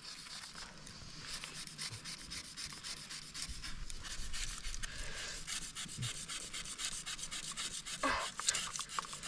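A wooden stick rubbed rapidly back and forth along a groove in a wooden base, friction fire-lighting with a fire plough: fast, steady scraping strokes, settling into their pace about a second in.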